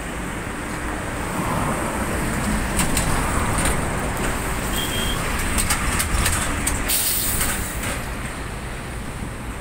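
Highway traffic noise from a moving vehicle, with cars passing close alongside and a steady rumble of engines and tyres. Several short hissy bursts come in the middle of the sound.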